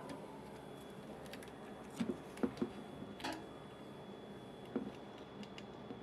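A handful of short, sharp clicks and knocks from plastic washing-machine front-panel parts and a control circuit board being handled, a cluster of them around the middle, over a steady faint background hum.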